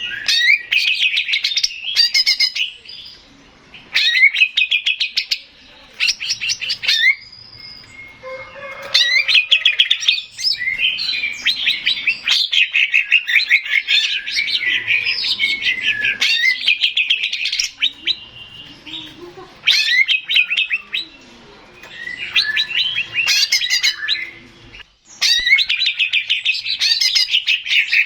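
Male green leafbird (cucak ijo) singing: rapid, chattering runs of trills and whistles in bursts of a few seconds, broken by short pauses.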